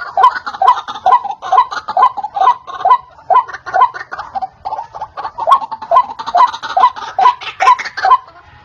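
White-breasted waterhen (ruak-ruak) calling: a fast, unbroken run of short, harsh repeated notes, about two to three a second, which stops just before the end. It is a lure recording for drawing the birds in.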